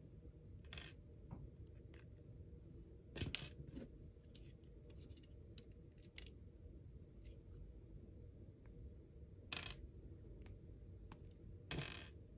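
Small plastic Lego pieces clicking and clattering on a wooden tabletop as they are pulled apart and set down. There are four louder clicks a few seconds apart, with fainter ticks between them, over a faint steady low hum.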